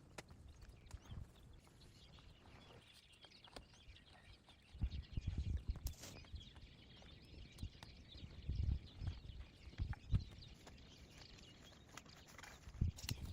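Irregular low thuds and sharp knocks of hands-on work with wood and forest-floor material, in clusters about five seconds in, around nine to ten seconds, and again near the end, over faint rustling.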